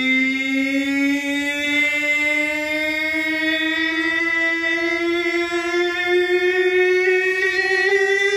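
Men's voices holding one long sung note in unison, the pitch creeping slowly upward without a break.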